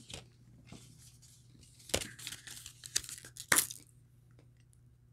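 Chocolate bar wrapper being handled and unfolded, crinkling and rustling in a few sharp bursts, the loudest about three and a half seconds in.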